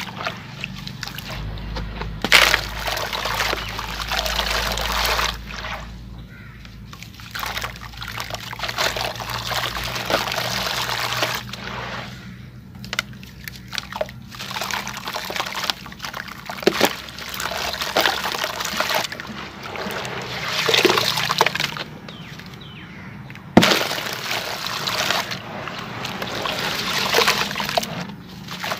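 Wet sand-cement lumps squeezed and crumbled by hand in a tub of water: sloshing and trickling as water and grit run off the pieces, with a few sharp splashes as chunks drop in, the loudest about two seconds in and again near the end.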